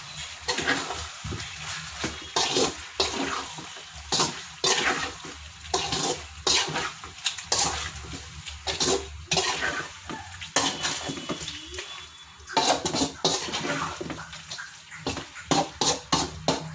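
Chicken, onions and potatoes being stirred and tossed in a hot pan, a metal spatula scraping the pan in irregular strokes over the sizzle of frying, as the turmeric and chili powder masala is fried in.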